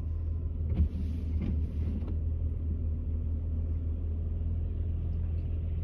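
Steady low rumble of a Nissan Maxima's engine and tyres on a snowy road, heard from inside the cabin. A thump comes a little under a second in, and a hiss rises briefly for about a second after it.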